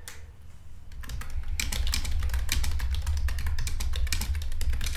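Typing on a computer keyboard: a quick run of key clicks that starts about a second in, over a steady low hum.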